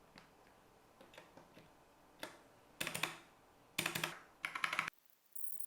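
Plastic keycaps being pushed onto the switches of a mechanical keyboard: scattered faint clicks, then three short clusters of clicks and clacks in the second half. The sound cuts off abruptly near the end.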